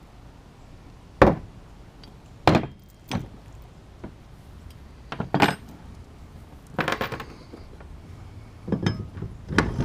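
Tools and metal mounting hardware knocking and clinking in a string of separate hits about a second or two apart, the sharpest near the start.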